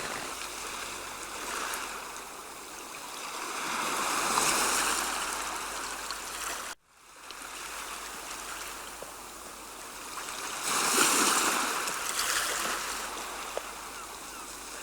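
Rushing water, swelling and fading, with a sudden cut about seven seconds in.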